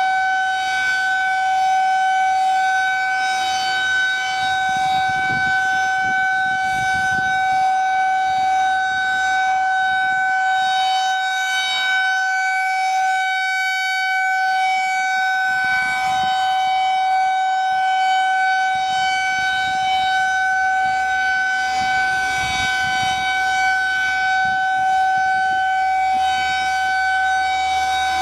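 Federal Signal 2001-SRN rotating electromechanical outdoor warning siren sounding during a siren test, holding one steady pitch at full speed with no rise or fall.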